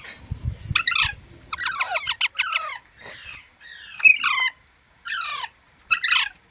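Baby parrots calling in harsh, downward-sweeping squawks, about five bouts with short gaps, one of them a quick run of several calls.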